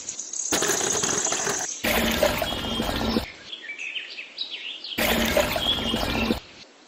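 Several cut-together stretches of loud rushing hiss. About midway a quieter gap holds birds chirping, short rising and falling calls.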